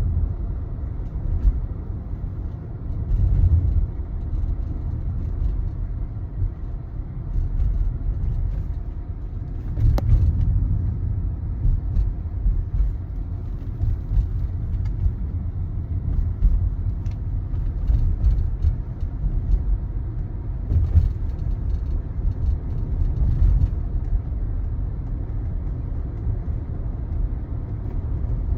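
Low road rumble of a 2023 Tesla Model Y on the move, with faint, irregular clicks and knocks scattered through it: a rattle somewhere in the car.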